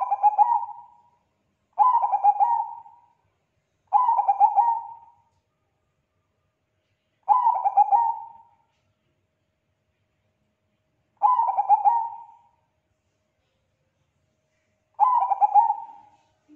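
A Bangkok-bred zebra dove (perkutut) cooing: six short rolling coo phrases, each a quick run of notes lasting about a second, with gaps of two to four seconds between them.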